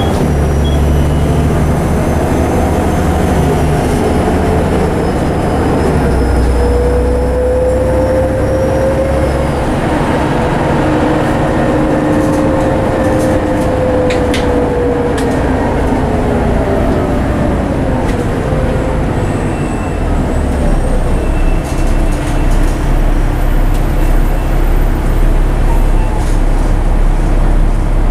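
Volvo B7TL double-decker bus heard from inside the saloon while driving: a steady low diesel engine drone with a drivetrain whine that rises and then falls in pitch, and a few light interior rattles. The engine note turns deeper and more uneven in the last third.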